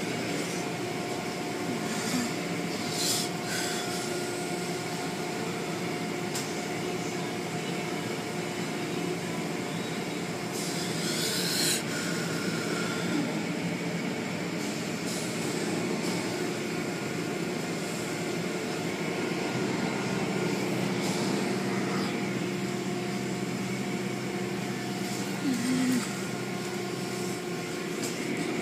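Automatic car wash running: a steady wash noise with a machine hum, and a brief hiss about eleven seconds in. A deeper hum joins about twenty seconds in.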